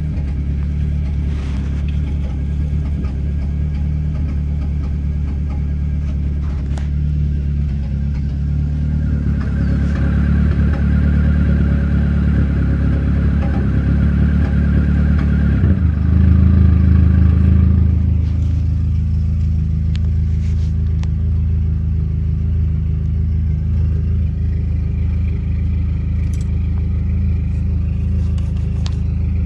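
Dodge SRT-4's turbocharged 2.4-litre four-cylinder running, an engine the owner says misfires audibly under slight load. Its note rises and grows louder through the middle, peaks about two-thirds of the way in, then settles to a steady lower run.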